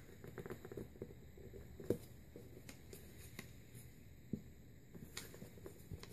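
Faint rustling and soft crinkling of a sheet of printer paper being handled and creased by hand, with a few small sharp taps, the sharpest about two seconds in.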